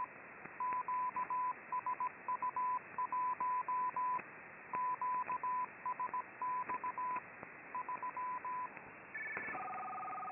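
Morse code (CW) signal on a shortwave receiver in sideband mode: a single mid-pitched beep keyed in dots and dashes over steady band hiss. Near the end the receiver is retuned, and a different data signal of two steady tones comes in.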